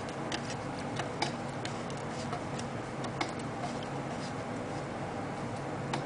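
Light, irregular clicks of a screwdriver turning and regripping the bolt through the air cleaner housing of an airhead BMW motorcycle as it is tightened down.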